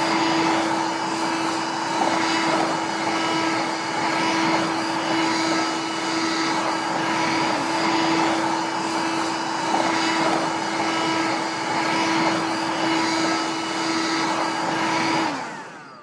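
Pink toy vacuum cleaner running with a steady whir and hiss. It stops shortly before the end.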